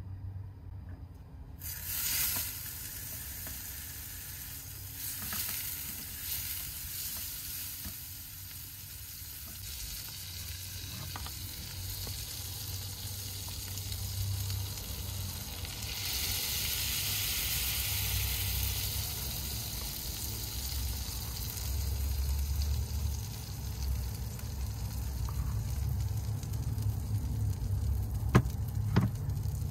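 Batter sizzling in a small frying pan on a portable butane camp stove. The sizzle starts suddenly about two seconds in and grows louder a little past the middle as batter is poured in, over a steady low hum, with a few sharp clicks near the end.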